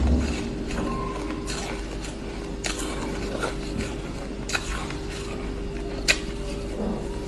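Shaved ice being eaten with a metal spoon: crisp bites and crunches every second or two, the sharpest about six seconds in, over a steady low hum.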